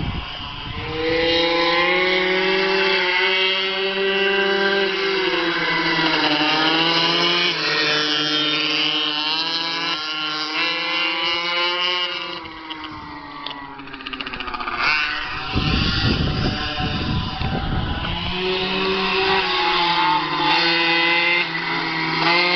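Blata B1 pocket bikes' small two-stroke engines revving, their pitch rising and falling again and again as they are ridden, with a short stretch of low rumble about two-thirds through.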